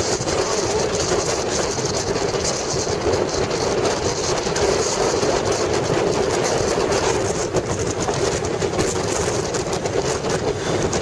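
Motorcycle riding at road speed: the engine runs steadily under a constant rush of wind and road noise, with no change in pace.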